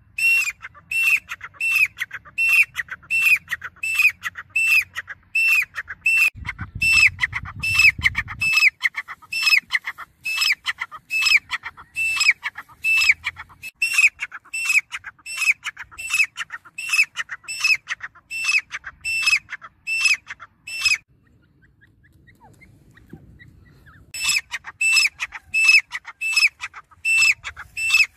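Grey francolin calling: a fast, regular series of short high notes, about two a second, which stops for about three seconds near the end and then starts again.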